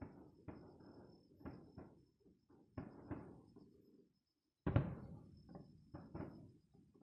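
Aerial fireworks bursting in quick succession, a series of sudden booms with short fading tails. The biggest bang comes a little before five seconds in.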